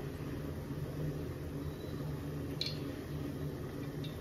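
Cooking oil poured from a glass jar into a steel pot, a faint trickle, over a steady low hum. Two short light sounds come about two and a half seconds in and near the end.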